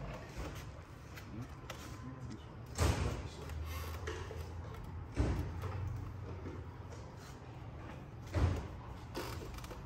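Three dull metallic knocks, about two and a half to three seconds apart, with faint scraping between them. They come from hand tools working on a shock absorber clamped in a strut spring compressor, as its thread-locked top cap is forced loose.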